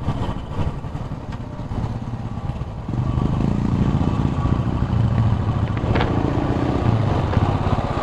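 Royal Enfield Bullet's single-cylinder engine running under way, heard from the saddle, growing louder about three seconds in. A brief click about six seconds in.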